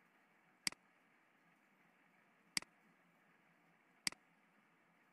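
Three sharp computer mouse clicks, each a press followed closely by a fainter release, spaced about one to two seconds apart over a faint steady hiss.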